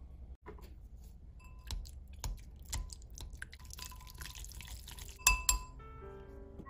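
Whisk mashing and stirring crumbled tofu in a glass bowl: a few sharp clinks of the whisk against the glass, a wet squishing stir in the middle, and two louder clinks close together about five seconds in.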